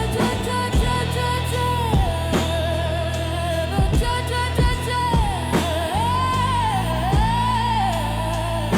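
Downtempo trip-hop music: a held, wavering sung melody that bends down and back up, over sustained bass and a slow drum beat.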